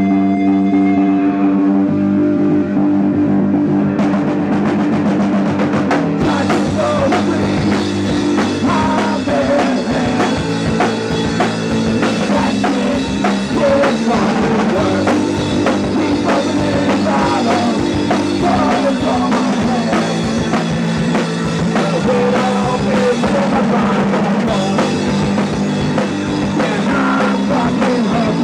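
Live rock band playing in a small room. It opens on electric guitar chords alone; drums come in about four seconds in, and the full band is going by about six seconds.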